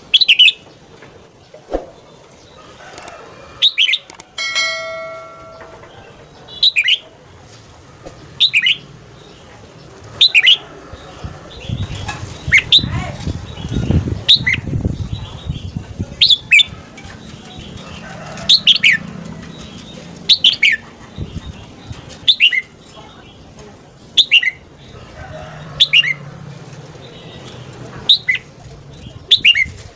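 Red-whiskered bulbul giving short, sharp notes, each a quick downward sweep, repeated about every two seconds. A steady whistle-like tone lasts about a second near the start, and a low rustling noise runs for a few seconds in the middle.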